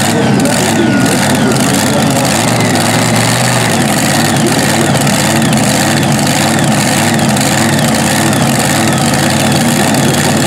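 Supercharged V8 engine of a mini modified pulling tractor idling steadily at the end of its pull.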